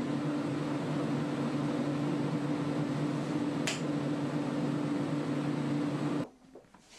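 Steady hum of a spray booth's ventilation fan, with one brief hiss of air a little past halfway; the hum cuts off suddenly near the end.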